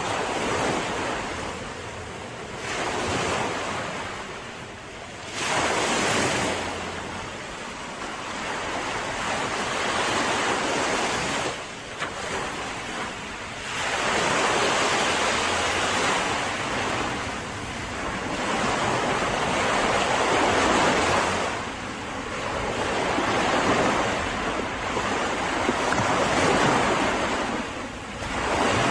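Mediterranean sea waves breaking and washing up a beach, swelling and fading every few seconds.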